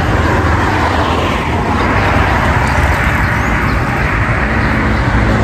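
Road traffic passing close by: a steady rush of tyre and engine noise.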